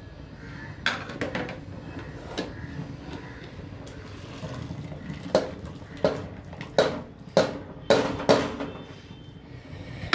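Metal strainer clanking and tapping against the rims of metal pots as parboiled basmati rice is scooped from boiling water and shaken into the biryani pot: a scatter of sharp knocks, more of them in the second half, over a low steady rumble.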